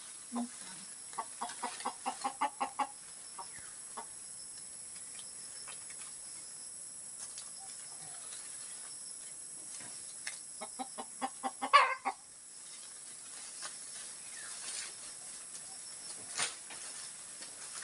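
A chicken clucking in two runs of quick, evenly spaced clucks, one about a second in and another around eleven seconds in.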